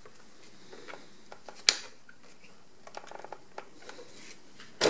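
Plastic clicks and light handling noises as gloved fingers press on the plastic hinge of a robot vacuum's main-brush housing to free it: one sharp click about a second and a half in, a few light ticks around three seconds, and a louder click near the end.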